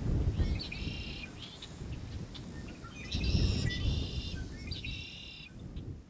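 Grassland soundscape: insects keep up a steady high-pitched trill while a bird sings three short buzzy, trilled phrases, over a low rumble; it all fades out at the end.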